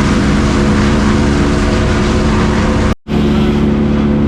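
Heavy equipment's diesel engine running steadily at a constant pitch, cut off briefly about three seconds in.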